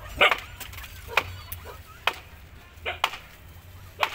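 Puppies yapping, two short sharp yaps, one a fraction of a second in and one about three seconds in, among a series of sharp clicks and snaps about once a second.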